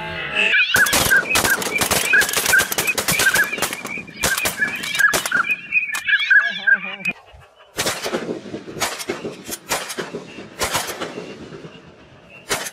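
Shotguns firing many shots in quick volleys from several guns at ducks overhead. A fast run of short repeated bird calls sounds under the first volley, and a wavering call comes in a lull about halfway through. A second burst of shots follows, thinning out towards the end.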